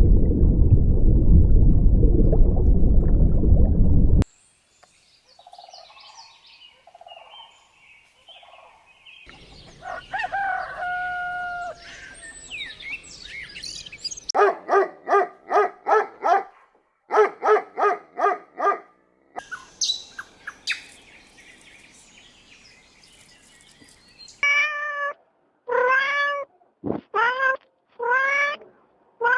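A series of separate domestic animal sound clips: a loud rough low sound for the first four seconds, then faint bird chirps, a run of quick repeated calls at about four a second, and near the end five short falling calls.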